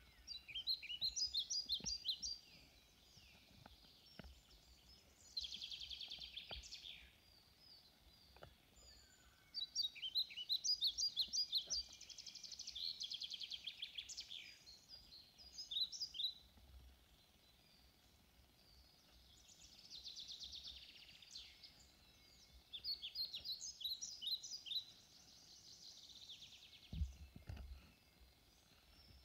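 Songbirds singing: phrases of rapid, high, chirping notes that come and go every few seconds. Faint soft clicks and rustles of boot laces being pulled tight, and a soft low thump near the end.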